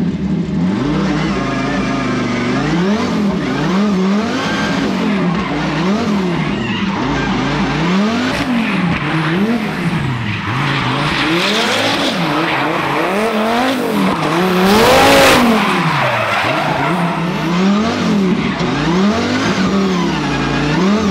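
Twin-turbo V10 Dodge Viper drift car revving up and down over and over, about once a second, with tyres skidding; loudest about fifteen seconds in.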